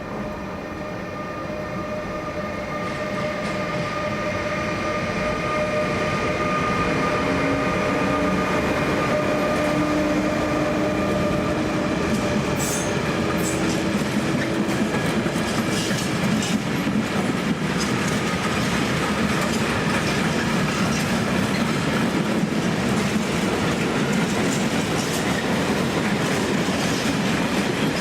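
A train rolling through a station, growing louder over the first several seconds. A steady whine is heard for roughly the first half. Then the wheels clatter and click over rail joints and points.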